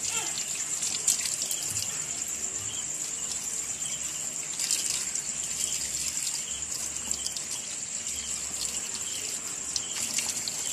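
Tap water running over a screen-printing squeegee and splashing into a tiled sink as paint is rubbed off it by hand, with small splashes and clicks throughout.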